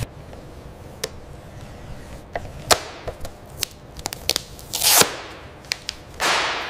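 Irregular sharp clicks and knocks of tools and parts being handled, with two short bursts of hiss, the second about six seconds in and fading away.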